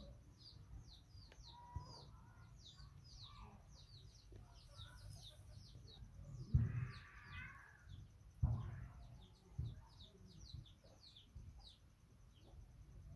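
Small birds chirping rapidly in the background, short falling chirps several a second, with a dull thump about six and a half seconds in and another about two seconds later.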